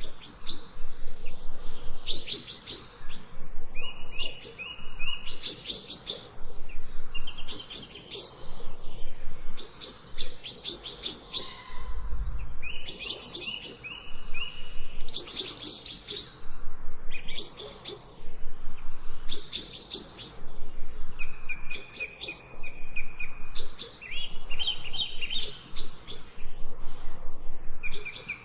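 Songbirds singing in a forest: short trilled phrases repeat about every two seconds, each a rapid run of high notes with a lower, held note after some of them. A brief low thump comes about twelve seconds in.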